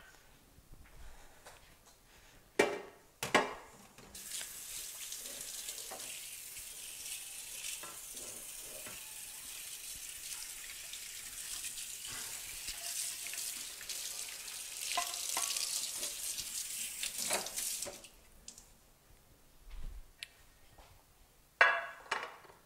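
Kitchen tap running into a sink for about fourteen seconds while a glass baking dish and bottle are rinsed out. A few clinks of glassware come before the water starts, and a sharp knock near the end as the glass dish is set down on the counter.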